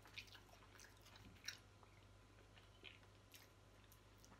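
Quiet chewing of spaghetti, with a few faint short clicks scattered through it.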